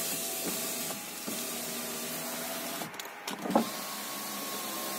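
Electric window motor in a 2017 Volkswagen Golf's front passenger door running the glass, stopping briefly with a knock about three and a half seconds in, then running again with a slightly rising whine. It works, though harshly, while the scan tool logs a fault for the front passenger door electronics.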